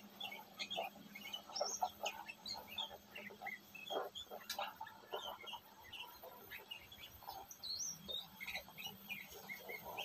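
Sooty-headed bulbul (kutilang) calls: a busy run of short, quick chirps and chattering notes at varied pitches.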